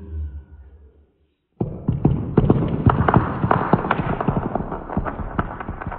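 A stack of dice knocked over by a rolled clay apple: a sudden, dense clatter of many small hard clicks as the dice tumble and scatter, starting about one and a half seconds in after a brief silence. The clatter is slowed down and lowered in pitch, as in a slow-motion replay.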